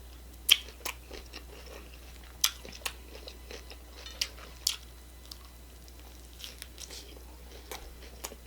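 Close-miked chewing of crunchy hard-shell tacos: scattered sharp crunches and wet mouth clicks, the loudest about half a second, two and a half and four and a half seconds in.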